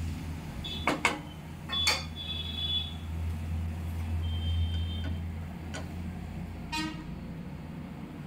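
Steel ladle clinking and scraping in a nonstick kadai as food is scooped out. There are several sharp metal clinks, the clearest about one and two seconds in, some ringing briefly. A steady low hum runs underneath and stops about two-thirds of the way through.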